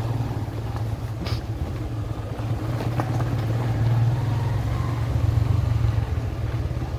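Motor vehicle's engine running steadily while driving, a constant low hum over road and wind noise, with a couple of faint clicks.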